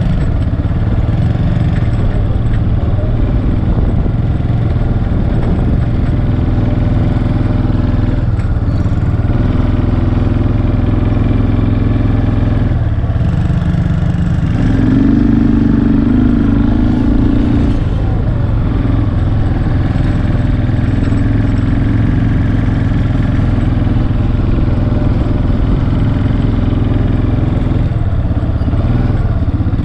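ATV engine running while being ridden across grass, its pitch stepping up and down with the throttle and rising louder for a few seconds about halfway through.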